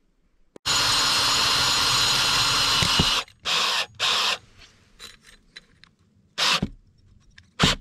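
Cordless drill driving a screw into a stainless steel chimney pipe: one long run of about two and a half seconds, then four short bursts.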